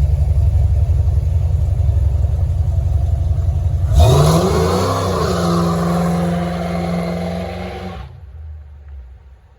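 An engine-like low rumble, then a rise in pitch like revving about four seconds in, holding steady before fading out near the end.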